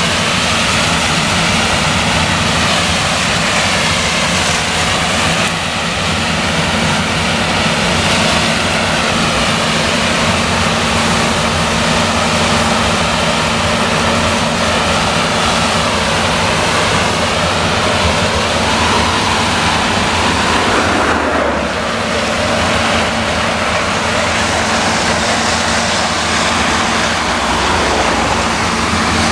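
New Holland CX8090 combine harvester at work threshing maize with an eight-row Geringhoff corn header: a loud, steady diesel engine drone under load mixed with the noise of the header and threshing machinery, dipping briefly once about three-quarters of the way through.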